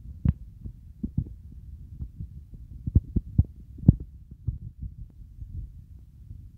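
Low rumble on a handheld phone's microphone, broken by irregular soft thumps, a few of them louder.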